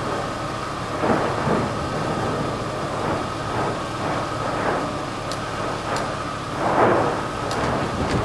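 Lava fountains of the Fimmvörðuháls fissure eruption: a continuous thunder-like rumble, swelling in irregular bursts several times, with a few sharp crackles.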